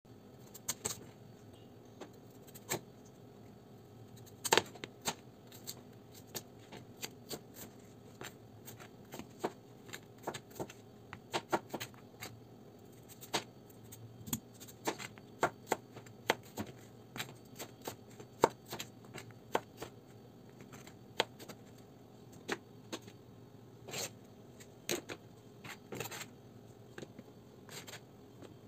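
Cleaver-style kitchen knife chopping a peeled potato on a plastic cutting board: sharp, irregular knocks of the blade striking the board, one or two a second.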